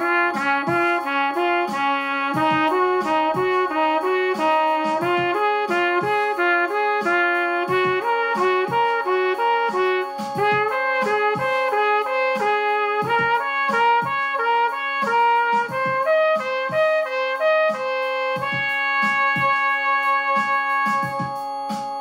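Trumpet playing the E-flat major scale in thirds in quick even notes, stepping up and back down and ending on a long held note near the end. Beneath it is a sustained keyboard accompaniment with a steady low pulse.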